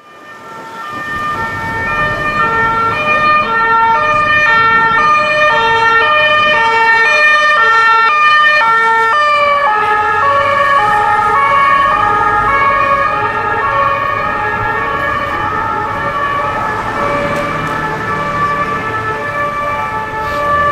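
French Police Nationale two-tone siren on a Renault Scénic patrol car, switching between two notes about twice a second. Its pitch drops slightly about nine seconds in as the car passes and pulls away. Traffic rumble sits underneath.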